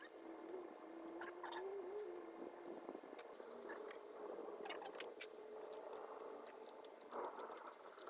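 Sped-up clicks and crinkles of duct tape being snipped and peeled by hand, scattered and faint, over a thin wavering hum.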